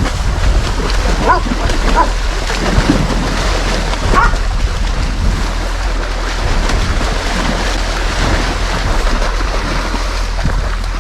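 Hunting dogs barking at a moose they are holding at bay, a few short barks in the first half, over a steady rushing background noise.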